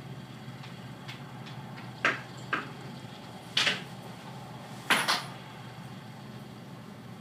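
Combine harvester engine running with a steady low drone. About two seconds in, five sharp clattering knocks break over it, the last two close together.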